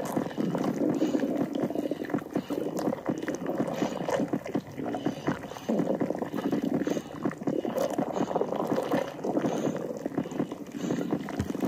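Stomach gurgling: wet, bubbling digestive sounds full of small pops, swelling and easing in waves.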